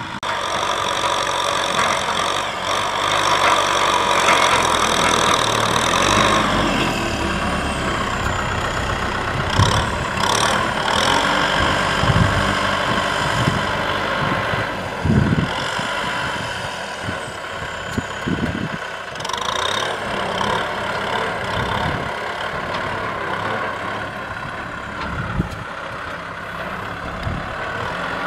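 Kubota M6040SU tractor's four-cylinder diesel engine running steadily under load while pulling a disc plough through dry ground, with a few sharp knocks along the way.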